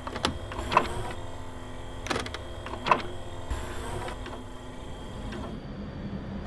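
A mechanical arm moving: clusters of sharp metallic clicks and short whirring motor sounds over a steady low hum. About five and a half seconds in the mechanism stops and a quieter steady background is left.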